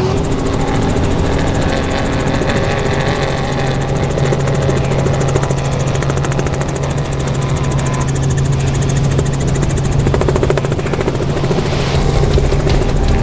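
Loud, steady engine drone with a fast, even pulse and little change in pitch.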